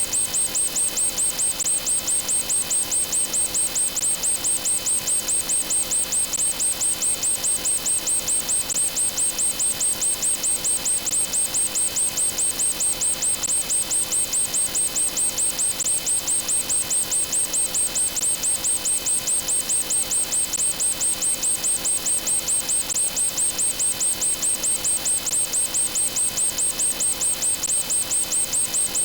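Fast, even electronic ticking, about four to five pulses a second, over a steady buzzy set of tones, repeating without change.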